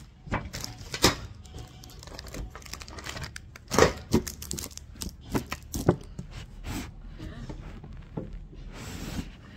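Handling noise close to the microphone: irregular clicks, knocks and rustling, like objects or packaging being moved and set down, with the sharpest knock about four seconds in.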